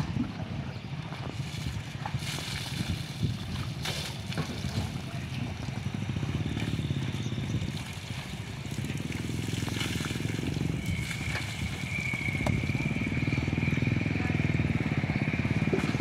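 Water pouring and splashing from a bucket onto a water buffalo's back, over a steady low rumble. A thin high tone holds through the last few seconds.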